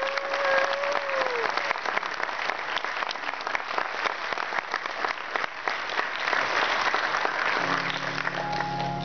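Wedding guests applauding the newly presented couple, with one drawn-out cheer from a guest at the start. Music begins softly under the applause near the end.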